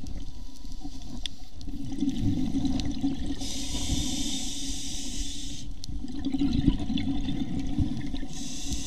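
Scuba regulator breathing heard underwater: two-second inhale hisses through the demand valve alternate with bubbling rushes of exhaled air, about one breath every five seconds, with a new inhale starting near the end.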